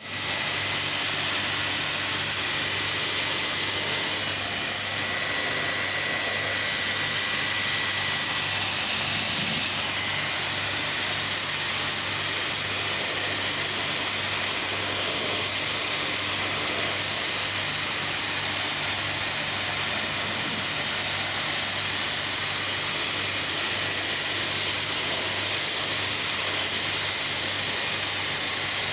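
Steady rushing hiss of machinery at work on a fan coil unit, unbroken throughout, with a low pulsing drone underneath.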